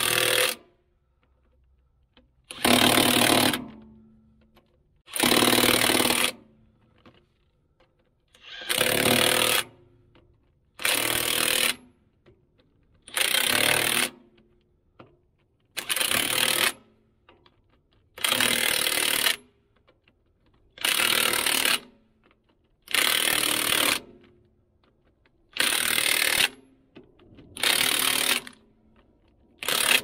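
Cordless impact wrench hammering lug nuts onto the tractor's wheel studs in short bursts of about a second, repeated every two to three seconds, about a dozen times.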